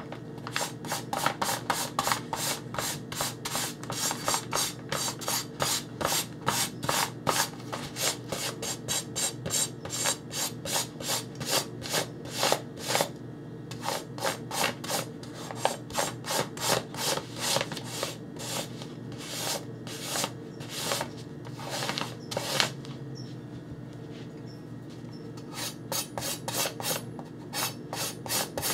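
Knife blade stroked back and forth across folded newspaper, stropping the freshly sharpened edge. Quick, even rubbing strokes, about three a second, stop for a couple of seconds near the end and then start again.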